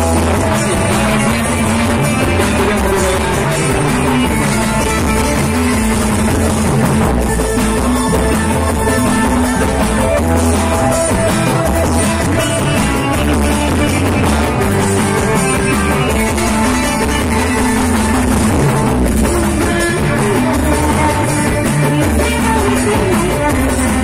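Loud, continuous music.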